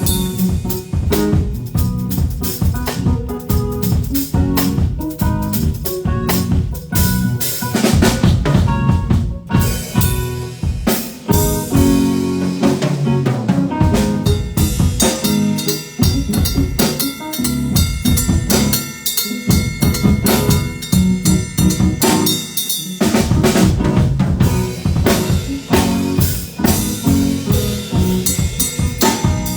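Live band playing: a drum kit with bass drum, snare and rimshots keeping a steady, busy groove, with pitched instruments sustaining notes over it.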